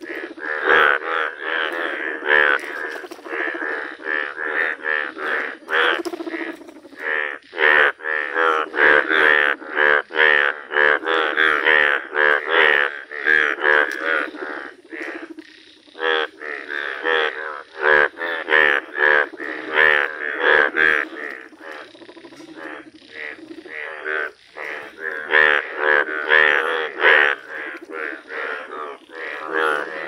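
Chorus of Indian bullfrogs (Hoplobatrachus tigerinus), the males' breeding calls: many overlapping croaks repeating rapidly, with a short lull about halfway through.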